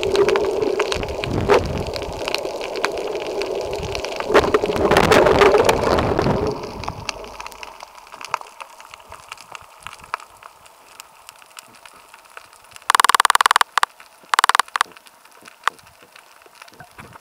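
Muffled underwater sound from a camera's waterproof housing: water churning and bubbling with crackling clicks as a freediver swims near the surface, falling off about seven seconds in to a quieter crackle. Two short loud buzzes break in near the end.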